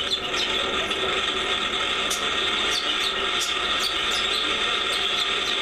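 Vehicle shaking over rough, torn-up construction pavement: a steady rushing noise with short, high squeaks and rattles repeating irregularly about every half second to second.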